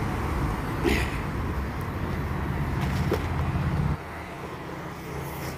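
Road traffic: a motor vehicle's low engine rumble close by, which drops off suddenly about four seconds in, with a single knock about a second in.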